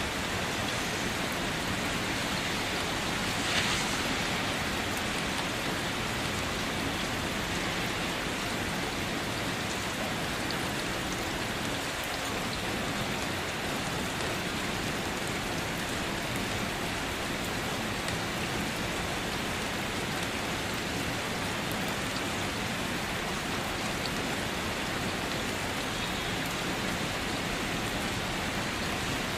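Steady rain falling and pattering on a surface, as an even wash of noise, with one brief louder swell about three and a half seconds in.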